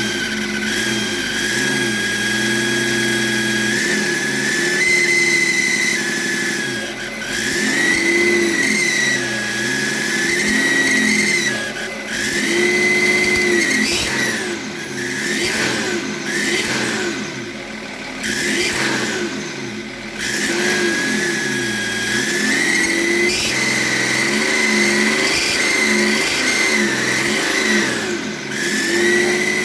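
BMW E38's M57 three-litre diesel revved up and down again and again, with a high turbocharger whine that climbs and falls with each rise in revs. The rebuilt variable-geometry turbo howls like the old one did, and the owner finds the howl goes away when the connector on the geometry control valve is unplugged.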